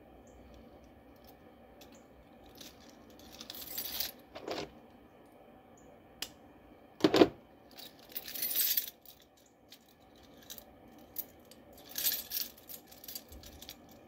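Metal hand tools and parts clinking and rattling as they are handled, with one sharp knock about seven seconds in and a few short hissy bursts.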